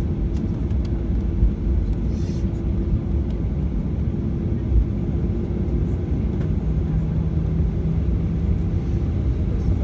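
Cabin noise of a Boeing 737 taxiing off the runway after landing: its CFM56 turbofans idling with a steady hum over the rumble of the wheels on the tarmac. A lower steady tone joins for a couple of seconds near the end.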